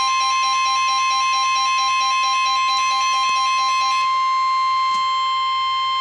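Weather-alert receiver sounding the steady 1050 Hz warning alarm tone that comes before a National Weather Service severe thunderstorm warning message. A fast, rapidly alternating beeping alarm plays over the tone until about four seconds in, then the steady tone carries on alone.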